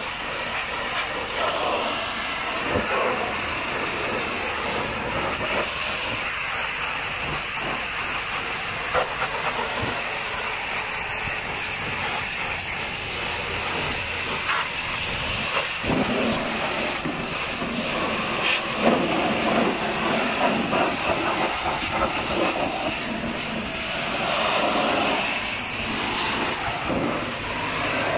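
High-pressure washer jet hissing steadily as it sprays water onto a truck's wheels, tyres and underside, the spray sound changing a little as the jet moves over different surfaces.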